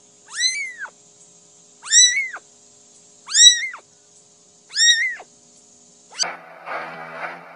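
Young kitten meowing four times, short high-pitched cries that rise and fall, about a second and a half apart. Quieter music starts near the end.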